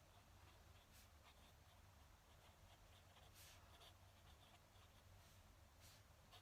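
Fountain pen nib scratching faintly across paper in short strokes, with small ticks between them, over a low steady hum.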